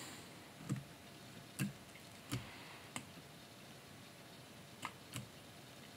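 Faint, scattered clicks of computer keys and a mouse or pen being pressed, about six separate clicks a second or so apart, as shortcuts are used while setting up a brush in Photoshop.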